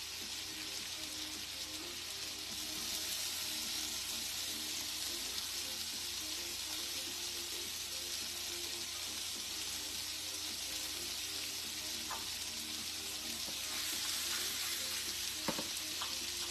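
Chicken frying in a pan, a steady sizzle that grows louder about two or three seconds in, with a few knocks of a utensil against the pan near the end.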